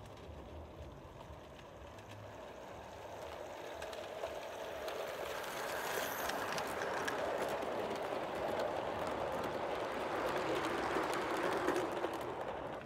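O gauge model train, an LMS tender locomotive hauling maroon coaches, running past on garden track. Its rolling rumble builds over several seconds as it approaches, then stays loud with a scatter of clicks while the coaches go by.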